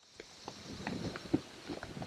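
Irregular rustling with small crackles and light knocks close to the microphone, denser around the middle.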